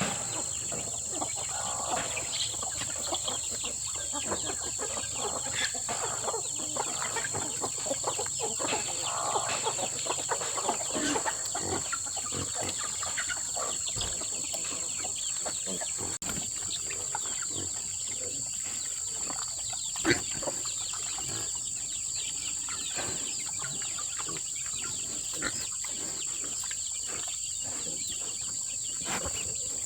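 Chickens clucking over a steady high-pitched insect drone, with scattered short clicks and taps.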